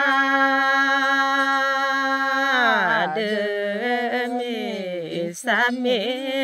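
A single unaccompanied voice chanting a Karen tha (traditional sung poem). It holds one long steady note for the first couple of seconds, then slides down into a wavering, ornamented melody, with a short break for breath about five seconds in.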